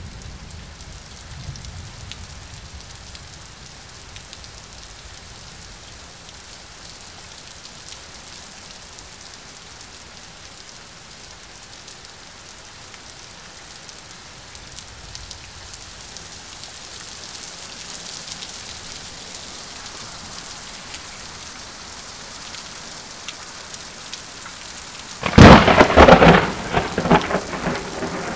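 Steady rain falling through a thunderstorm, with a faint low rumble of distant thunder in the first few seconds. About 25 seconds in, thunder from a close lightning strike cracks sharply, the loudest sound by far, then crackles and rumbles on for the last few seconds.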